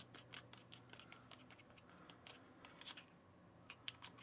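Faint scraping and tapping of a small plastic tool stirring foamy whipped-topping mix in a small plastic tray, a few soft clicks a second.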